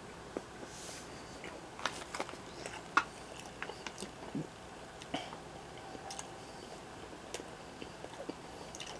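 A person chewing a mouthful of grilled sausage, with scattered faint wet clicks and smacks from the mouth.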